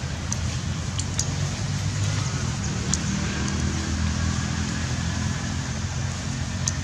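Steady low drone of a running engine or road traffic, a little stronger about two to four seconds in, with a few faint ticks.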